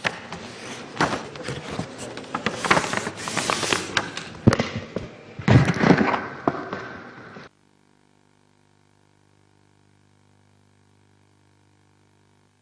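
Irregular knocks, thuds and rustling picked up by an open desk microphone, with papers being handled. About seven seconds in it cuts off abruptly to a faint steady hum.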